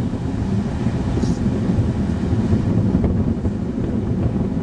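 Strong wind buffeting the camera microphone in a steady low rumble, over the wash of breaking surf.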